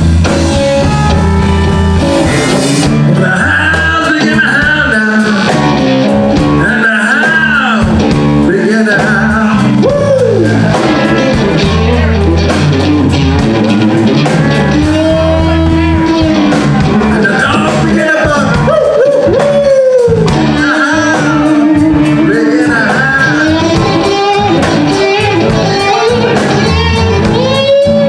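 Live blues band playing: an electric guitar's lead lines, full of notes that bend up and fall back in pitch, over electric bass and drums.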